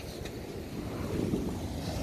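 Surf washing up the beach, with wind buffeting the microphone; the wash swells louder about a second in.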